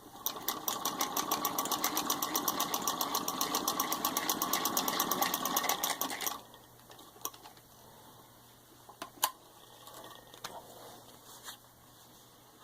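Hand-cranked 1918 Singer 66-1 sewing machine stitching through six layers of denim: a fast, even clatter that stops about six seconds in. A few scattered clicks and knocks follow.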